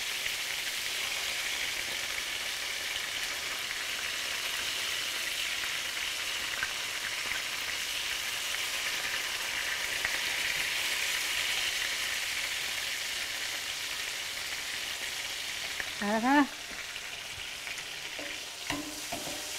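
Flour-dredged chicken tenders shallow-frying in olive oil and butter in a skillet, browning: a steady sizzling hiss, with a couple of light clicks near the end.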